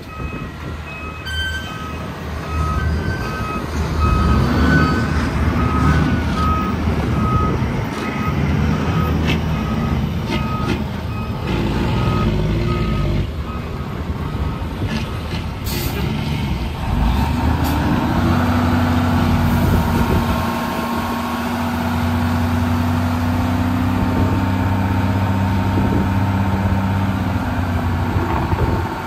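Heavy diesel truck reversing, its backup alarm beeping in a steady repeating pattern through the first half, with the engine running underneath. A brief hiss comes about halfway through. After it the beeping has stopped, and the engine rises in pitch and holds steady under load.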